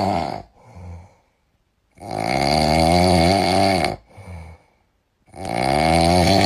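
Loud snoring in slow cycles: one snore tails off at the very start, then two long snores of about two seconds each begin about two and five seconds in, with a wavering, buzzing pitch. A short, softer breath comes in the gap after each snore.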